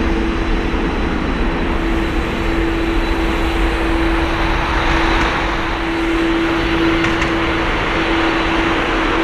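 Airbus A330-300 airliner's twin jet engines running steadily at low thrust as it rolls slowly along the runway: a continuous rush with one steady tone held throughout.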